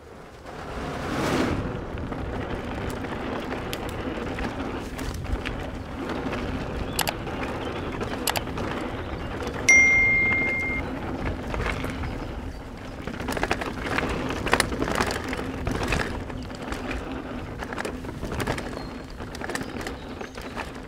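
Specialized Enduro mountain bike ridden down a dirt trail: steady rolling tyre and wind noise with frequent rattles and knocks from the bike over bumps. About ten seconds in, a single high ringing ding that fades over about a second.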